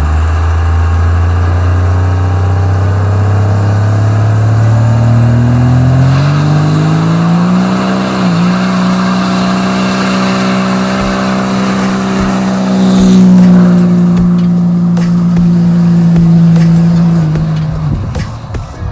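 1996 Dodge Ram's 5.9-litre 12-valve Cummins turbo diesel revved up and held at high revs, as in a burnout with the rear tires spinning. The revs climb steadily for several seconds, dip briefly about eight seconds in, stay high, then fall away near the end.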